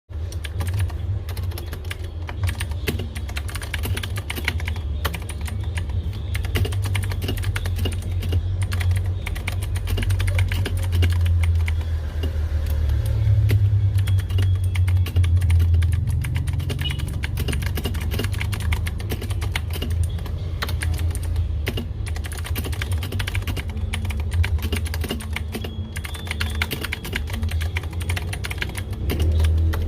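Continuous fast typing on a Rakk Illis mechanical keyboard fitted with Akko V3 Cream Yellow linear switches: a dense, uneven stream of key clacks. A steady low rumble runs underneath.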